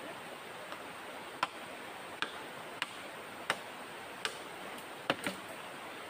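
Sharp knocks of a tool striking bamboo, about one every three-quarters of a second, with two close together near the end, over the steady rush of river water.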